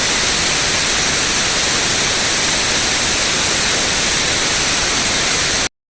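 Loud, steady broadcast static hiss, as of a dead TV or radio signal, cutting off suddenly near the end.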